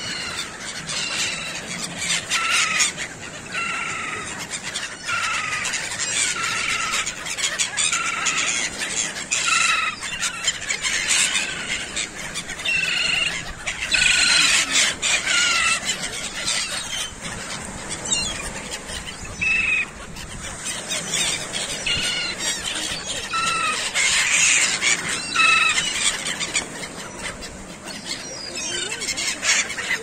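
Gulls calling over and over: short, slightly falling squealing calls, roughly one a second, from a flock wheeling low over the beach.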